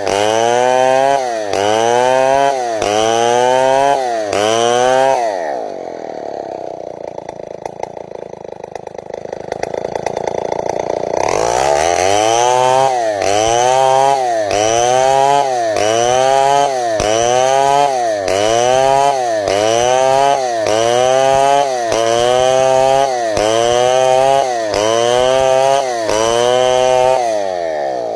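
Chainsaw engine cutting timber lengthwise into a board, its pitch rising and dipping in a regular cycle about once every 0.8 seconds under load. About five seconds in it drops back to idle, revs up again some six seconds later and resumes cutting, then falls back to idle near the end.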